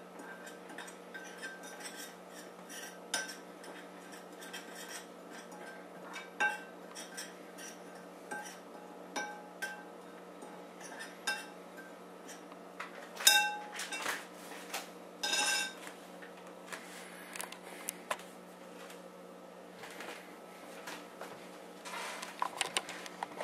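A spoon stirring dry ground spices in a ceramic bowl: repeated irregular clinks and scrapes against the bowl's sides, with a few louder clinks in the middle.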